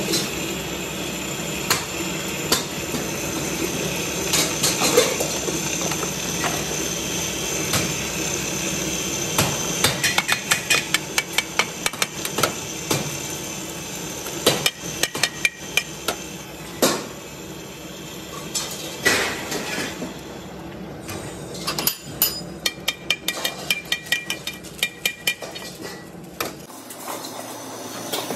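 Sharp metallic ticking and scraping from a hand-held chisel riding on the fresh weld seam of a rotating steel gas-cylinder body, chipping off slag, over a steady machine hum. The ticks come in fast runs, and the hum cuts off near the end.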